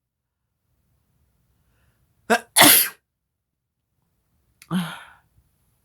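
A person sneezing from snorted sneezing powder: a full sneeze about two seconds in, a short catch then a loud burst, followed about two seconds later by a softer, shorter one.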